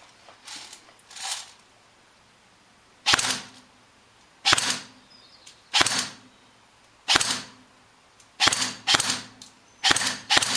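G&G M4 CQB-S airsoft electric rifle with pneumatic blowback firing single semi-automatic shots, each a sharp crack with a short mechanical tail. About ten shots, well over a second apart at first and coming quicker near the end.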